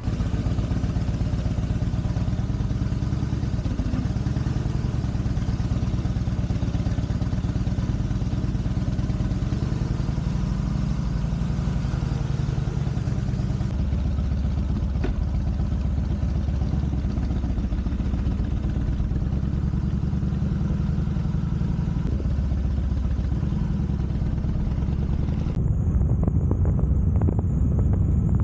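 Harley-Davidson Heritage Softail Classic's V-twin engine running under way, a steady low rumble. The note settles lower about halfway through.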